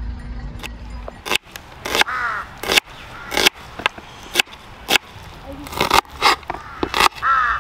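Crows cawing several times in short harsh calls, over repeated sharp knocks about one or two a second; a low rumble stops about a second in.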